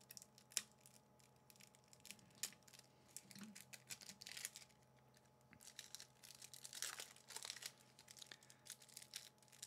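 Faint crinkling and crackling of a trading-card booster pack's thin clear plastic wrapper as it is torn open and handled, coming in short scattered spells.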